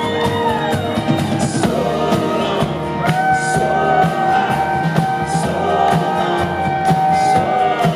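Live folk-rock band playing: strummed acoustic guitar, electric guitar and upright bass under wordless sung vocals that glide at first and then hold one long note from about three seconds in.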